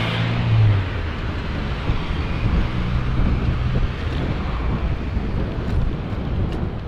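Wind rushing over a bike-mounted camera's microphone while riding, with a Ford Ranger pickup's engine running close alongside in the first second, then fading as the truck pulls ahead.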